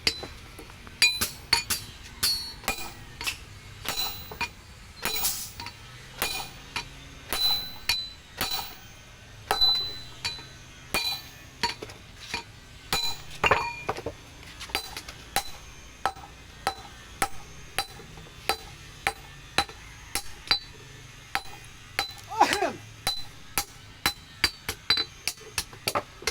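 Blacksmith's hammer striking steel on an anvil while forging a chopping-knife blade: a long run of ringing metallic blows, about one to two a second, with a few louder strikes along the way.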